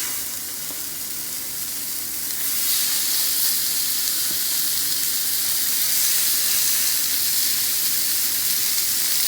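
Raw ground beef patties sizzling in a hot skillet, a steady frying hiss that grows louder about two and a half seconds in.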